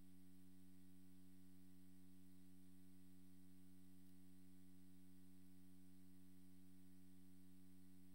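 Near silence with a faint, steady hum made of several unchanging tones.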